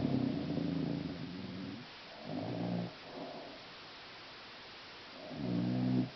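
A woman snoring: three low buzzing snores, a long one at the start, a short one about two seconds later and another near the end.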